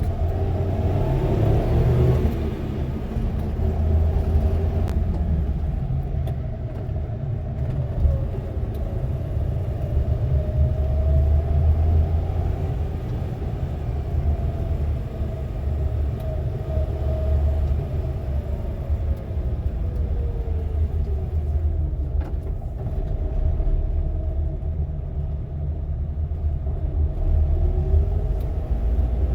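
Suzuki Jimny JA71 being driven: a steady low rumble of engine and road noise, with the engine note slowly rising and falling as speed changes.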